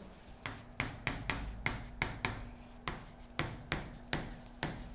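Chalk writing on a blackboard: a run of short, sharp taps and scrapes, about two or three a second, as a phrase is written out.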